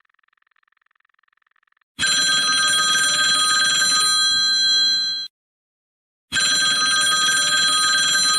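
Old-style telephone bell ringing twice, each ring about three seconds long with a second's pause between.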